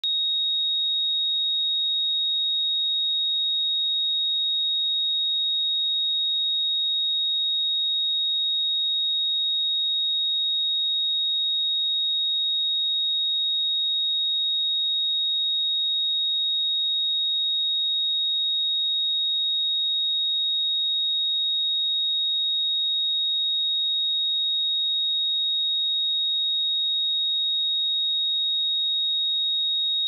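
A pure 3758 Hz sine-wave test tone, one steady high-pitched note held at a constant level.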